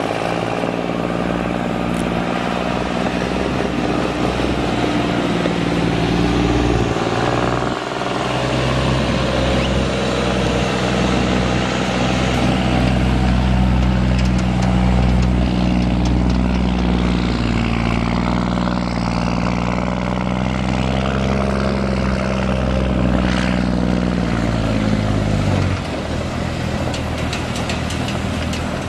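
Cummins M11 inline-six turbo diesel of an International 8100 truck running steadily, its engine speed rising and falling slowly. About 26 seconds in, the engine speed drops and it runs quieter.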